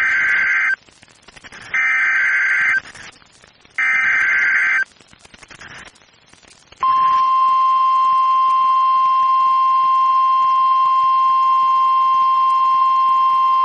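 NOAA Weather Radio Emergency Alert System activation. Three one-second bursts of warbling digital data tones (the SAME header) sound about a second apart. About seven seconds in, the steady 1050 Hz weather radio warning alarm tone begins and holds, signalling that a warning message such as this tornado warning will follow.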